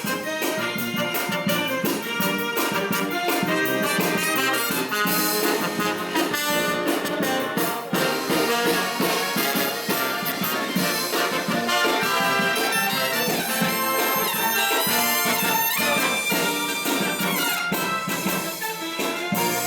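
A live brass band playing a lively Halloween parade tune, with trumpets and trombones leading over drums.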